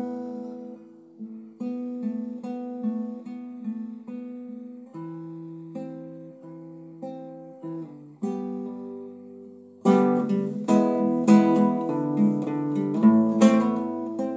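Nylon-string classical guitar played solo: softly picked chords that change every few seconds, then about two-thirds through it turns to louder, quicker strumming.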